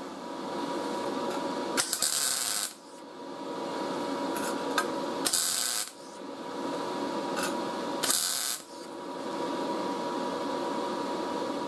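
MIG welder (YesWelder MIG-205DS) striking three short spot welds on thin sheet steel. Each is a burst of arc noise under a second long, about three seconds apart, with a steady fan hum in between. The arc is running with the amps (wire speed) and voltage turned up, the setting that cured a squeak in its sound.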